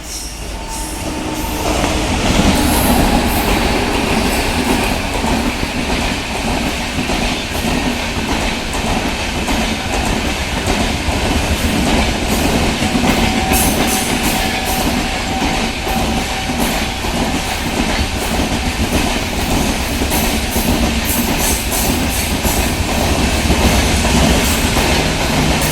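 Passenger express train running past: a steady, loud rumble of the coaches with rapid clickety-clack of wheels over rail joints, building up over the first two seconds.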